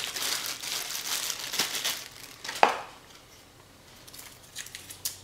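Packaging rustling and crinkling as a camera accessory is unwrapped, with a sharp click about two and a half seconds in. After that, quieter handling with a few faint ticks.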